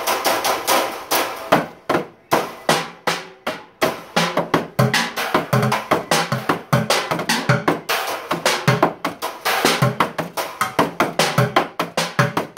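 Drumsticks playing a fast, busy beat on a makeshift drum set that includes a bucket, with sharp strikes several times a second. Deeper thuds join the pattern about five seconds in.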